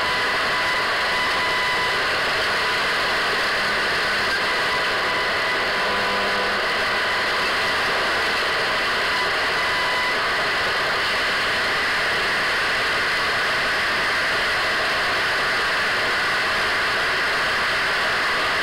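Radio static from a radio tuned between stations: a steady, even hiss with a faint high whistle through the first ten seconds or so.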